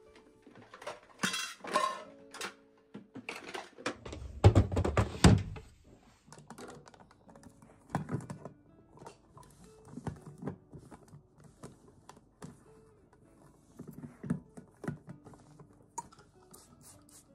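Glass bowl and plastic parts of a food chopper knocking and clattering as they are handled and taken apart, with a burst of heavy thuds about four to five seconds in. Soft background music underneath.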